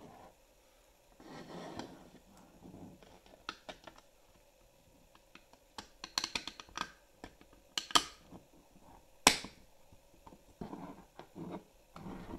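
Clicks, taps and scrapes of a 3D-printed PLA plastic enclosure being handled and its halves pressed together, with a quick run of clicks about six seconds in and one sharp snap about nine seconds in, the loudest.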